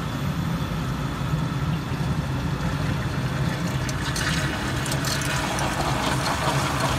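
Fanuc Robocut wire EDM machine humming steadily while its work tank drains. From about four seconds in, the noise of draining water grows louder over the hum.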